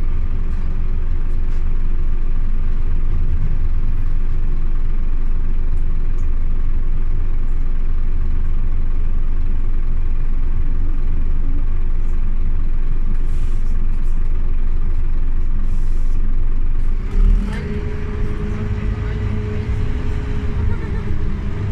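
Scania OmniLink city bus heard from inside while under way: a steady low engine and road rumble. About three-quarters of the way through there is a thump, the rumble drops, and a steady whine comes in.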